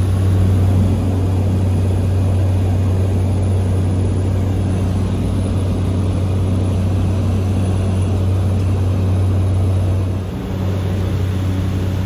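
Cessna 208B Grand Caravan's single Pratt & Whitney PT6A turboprop engine and propeller running steadily in flight, a loud constant drone with a low hum and a rushing noise over it. The level dips slightly about ten seconds in.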